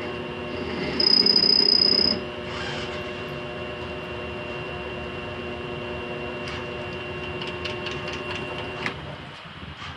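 Grizzly G0769 mill-lathe combo running, with a louder stretch and a high whine for about a second near the start. The motor hum stops about nine seconds in, with light clicks near the end.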